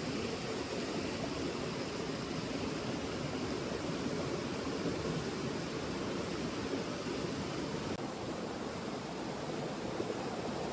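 River water flowing steadily, a continuous even rush with no breaks.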